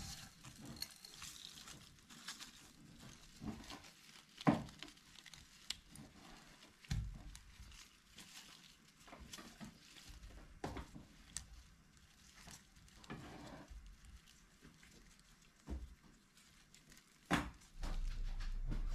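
Dry toasted spices (coriander seeds, star anise, cinnamon sticks) rattling and scraping against a stainless steel pan as they are scooped into a plastic spice bag, with crinkling of the bag and scattered sharp clicks. A low steady hum comes in near the end.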